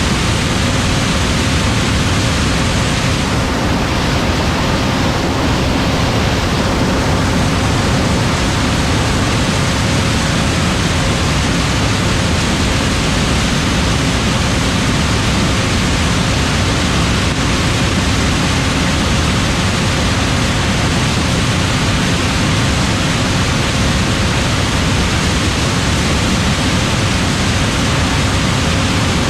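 John Deere S7 800 combine running steadily while harvesting corn: a loud, even rushing noise with a faint steady hum under it.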